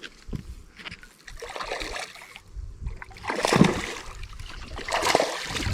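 Water splashing in several short bursts, the loudest about three and a half seconds in: a hooked spotted bass thrashing at the surface during the fight.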